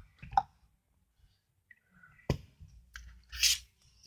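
Quiet handling noises: a sharp click a little past the halfway point and a brief rustle near the end.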